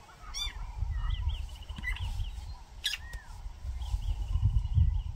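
A mix of wild birds calling and chirping: short repeated notes, a quick rising trill, and a single down-curving whistle. Underneath, a louder, irregular low rumble starts just after the beginning.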